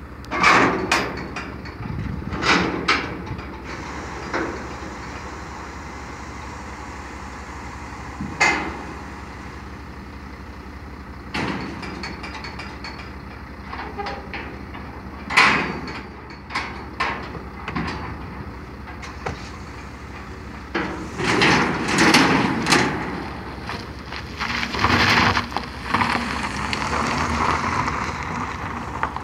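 Steel loading ramps of a car-carrier trailer clanking and banging in scattered sharp hits over a steady low engine hum. The clanking thickens in the last third as a car comes down the ramps.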